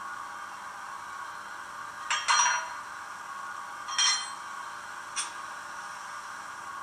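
Digital sound decoder in an SBB Re 460 model locomotive playing its coupling sound through the model's small loudspeaker: metallic clanks of couplers and buffers, a double clank about two seconds in, another about four seconds in and a lighter one a second later. A steady hiss of the standing locomotive's sound runs underneath.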